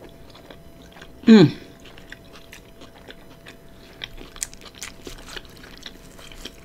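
Close-up mouth sounds of chewing food, with small wet clicks and smacks. One short hummed sound comes about a second in, and the clicks grow busier in the second half.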